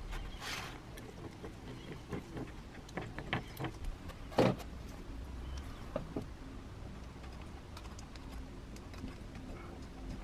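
Workbench handling noises as a metal grease gun is brought to a spiral jack's greased housing: scattered light clicks and knocks, with one louder knock about four and a half seconds in.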